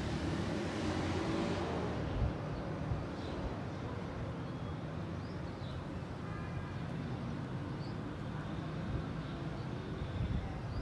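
Steady low outdoor background rumble with no meowing, with a few faint, short high chirps scattered through it.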